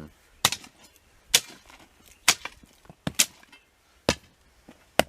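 Six sharp chopping strikes, about one a second, as a hand tool hacks through the roots of a lemon tree being dug out for transplanting.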